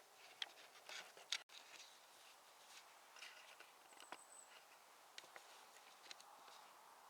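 Near silence with faint scattered rustles and clicks, busiest in the first second and a half, and a brief thin high tone about four seconds in.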